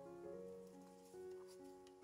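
Soft instrumental background music, a slow melody of held notes. Near the end there are faint light ticks as washed rice is tipped into a steel wok.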